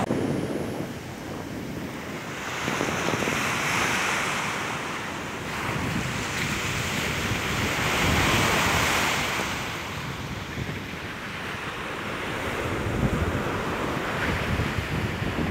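Surf breaking on a sandy beach, the wash swelling and fading every few seconds, with wind buffeting the microphone.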